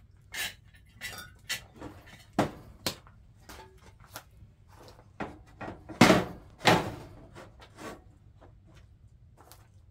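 Cast-iron griddle plate and stove-top parts clanking and knocking as they are handled and set down on a wood stove, a string of separate knocks with the two loudest clanks about six seconds in.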